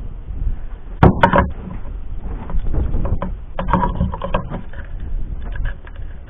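Handling clicks and knocks as an airsoft rifle's battery is taken out of its battery storage and a LiPo battery put in, a sharp cluster about a second in and more scattered ones later, over a low rumble.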